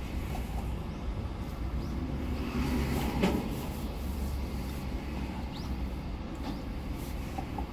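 Car cabin noise while stopped in traffic: a steady low engine and road rumble, with a brief swell and a single sharp knock about three seconds in.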